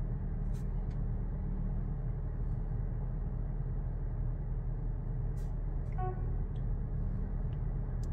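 Steady low hum inside a car's cabin, with a few faint clicks and a brief pitched tone about six seconds in.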